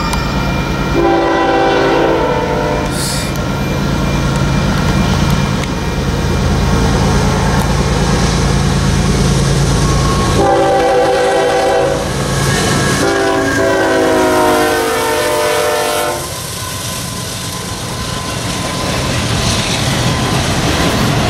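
Diesel freight locomotives running close by, with a multi-tone horn blast about a second in. Later a train horn sounds two long blasts around the middle. Then container stack cars roll past with steady rail and wheel noise.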